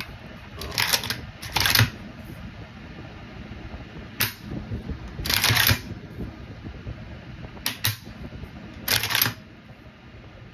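An AK rifle's ALG enhanced trigger group being dry-fired and reset, giving sharp metallic clicks of the hammer and trigger in three pairs, a second or so apart within each pair.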